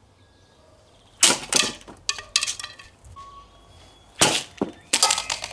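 Cossack shashka sabre striking a stick of dry, hard bamboo: two sharp cracks about three seconds apart, each followed by a few smaller knocks.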